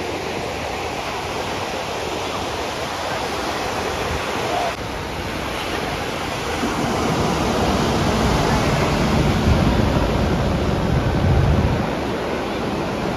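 Ocean surf and wind on the microphone, with a helicopter's low rotor and engine rumble swelling in the second half as it passes close overhead, then dropping away near the end.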